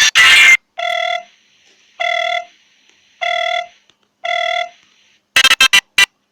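Samsung Galaxy J7 Pro ringtone: four identical electronic beeps, evenly spaced a little over a second apart. It follows the abrupt end of the previous musical ringtone, and a new ringtone starts near the end with a quick run of short, loud notes.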